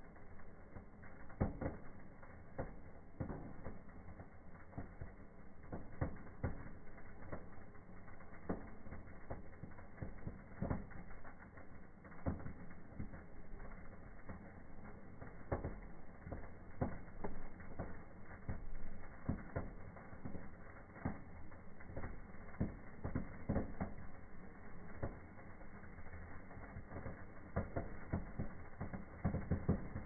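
Small indoor firework fountains burning and throwing sparks, with irregular crackles and pops throughout.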